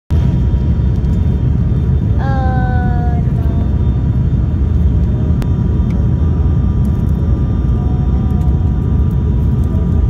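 Airliner cabin noise heard from a window seat: a loud, steady low rumble of engines and airflow. A brief voice about two seconds in.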